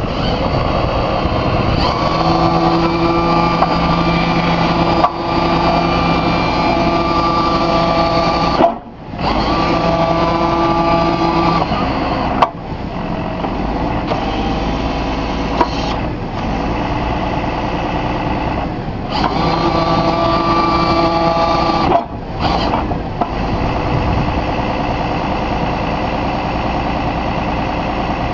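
Forklift engine running, with a steady hydraulic whine coming in for stretches of a few seconds as the Cascade paper roll clamp is rotated and its arms opened and closed. The sound drops away sharply for a moment twice.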